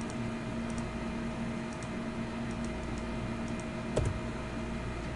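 Faint clicks of a computer mouse, a few soft double ticks about a second apart, then one louder click about four seconds in, over a steady electrical hum.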